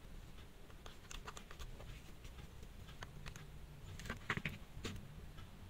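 Faint small clicks and taps from metal tweezers and an opened wristwatch being handled, with a short cluster of louder ticks about four seconds in.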